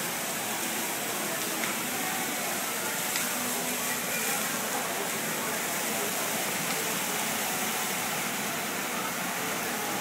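Steady hiss and splash of an indoor floor fountain's water jets, under the murmur of a crowd.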